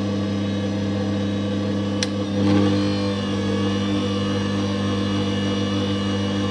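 Bosch stand mixer's motor running steadily with an even hum, turning the dough hook through flour, milk and yeast as bread dough begins to mix. A short click about two seconds in, then a brief swell in the sound.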